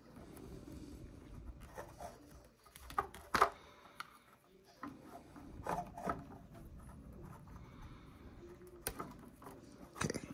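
Hands handling and fitting small plastic parts of an anime figure: light rubbing and scraping with a few sharp clicks and taps, the loudest about three and a half seconds in.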